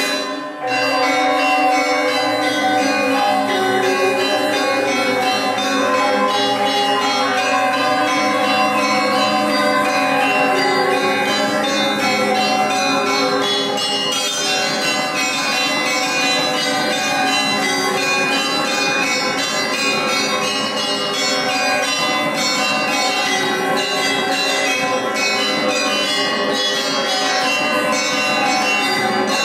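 Music played on ringing, bell-like tuned metal percussion: a dense, unbroken stream of struck notes.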